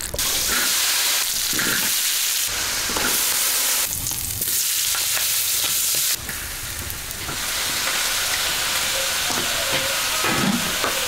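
Food sizzling as it stir-fries in a large wok, with a metal ladle stirring and scraping through it. The sizzle changes level abruptly a few times.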